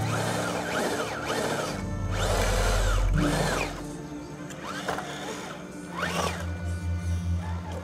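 Electric drive motor and gearbox of a 1/10-scale RC rock crawler whining, the pitch swelling and falling again and again with short bursts of throttle as it crawls over rocks.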